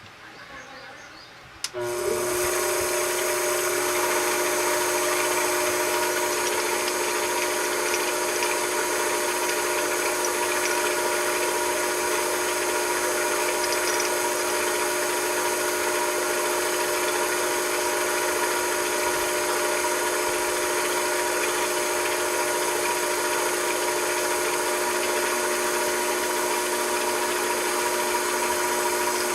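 A machine tool switches on with a click less than two seconds in, then runs steadily with a constant multi-tone whine over a hiss.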